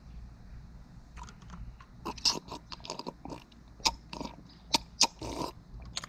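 Ice cubes crunched between the teeth: a run of irregular sharp crunches starting about a second in and stopping shortly before the end.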